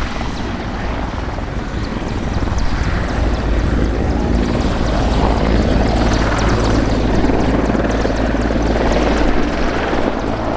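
Mil Mi-24 Hind attack helicopter hovering, its twin turboshaft engines and main rotor making a steady, loud rotor and turbine noise that grows louder about four seconds in.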